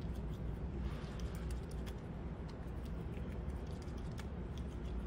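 Fox squirrel chewing a chilled green grape: small irregular clicks of its biting and chewing, over a steady low background rumble.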